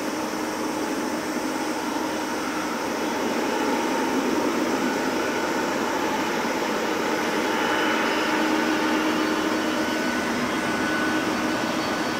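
Boeing 767-200ER's twin jet engines at taxi power as the airliner turns to line up for take-off: a steady rush of jet noise with a faint whine through it, growing a little louder about four seconds in.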